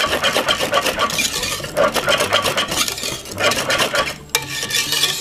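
Thick cornmeal porridge being stirred in a pot: a utensil scrapes and clicks against the pot in quick, repeated strokes. A sharper knock comes about four seconds in.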